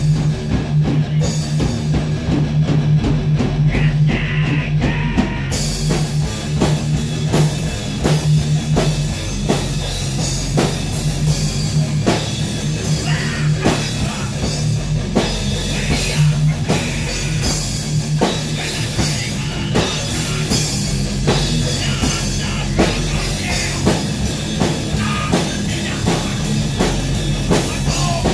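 Rock music with a drum kit and guitar playing together, loud, over a steady low note and regular drum strikes; the sound turns brighter and fuller about five seconds in.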